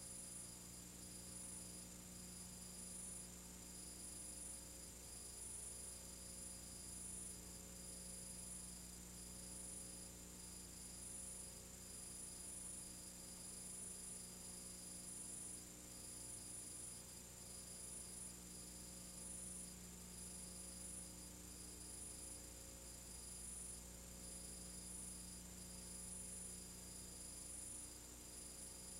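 Faint steady electrical hum and buzz with a thin high whine that flickers slightly, over a low hiss; no sound from the etching itself.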